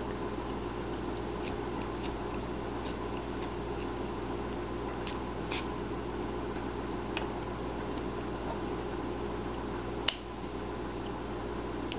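Carving knife slicing small chips from a wooden figure by hand: scattered faint clicks and snicks of the blade cutting wood, the sharpest one a little after ten seconds, over a steady background hum.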